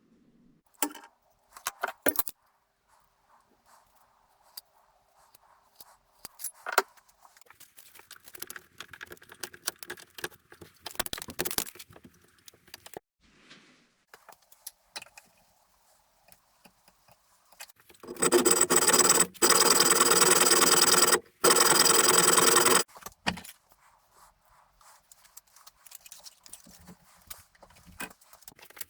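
Small metal parts and tools clinking and scraping, then an electric drill motor running loud and steady for about three seconds, stopping briefly, and running again for about a second and a half, drilling into aluminium plate.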